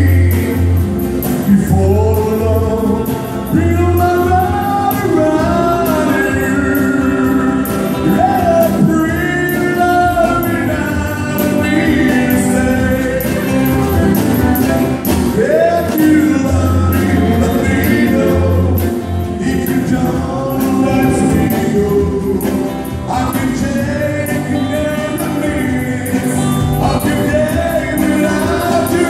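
A live band playing a song: a man sings lead over strummed acoustic guitars and a bass guitar, with a steady beat.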